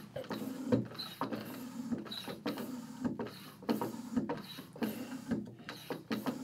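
Floor-standing hand tire pump worked in steady, rhythmic strokes, pushing air through an adapter into a motorcycle race suit's airbag to inflate it to about 4 PSI as a leak test.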